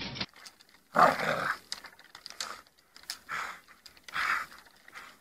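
A dog giving a series of short, rough vocal bursts about a second apart, the first and loudest about a second in.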